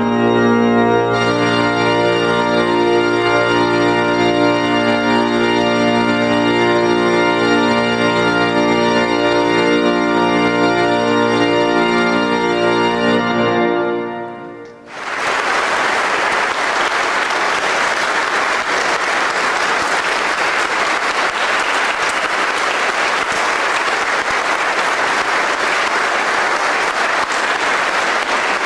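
Pipe organ playing sustained full chords, then cutting off on a final chord about halfway through. After a brief pause an audience applauds steadily.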